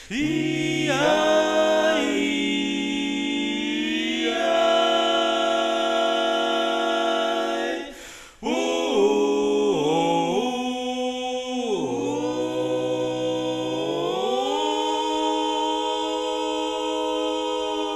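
Multitracked barbershop quartet singing a cappella in long, held four-part chords with sliding pitch changes. It breaks off briefly about eight seconds in, then comes back and settles into a long sustained chord near the end.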